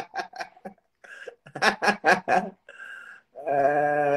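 A man laughing hard: two runs of rapid 'ha-ha' pulses, about four or five a second, with a gap between them. About three seconds in they give way to one long drawn-out voiced cry that slowly falls in pitch.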